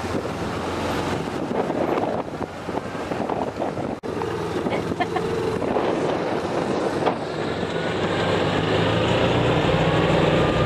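A motor engine running steadily under wind noise on the microphone, its pitch rising slightly over the last few seconds.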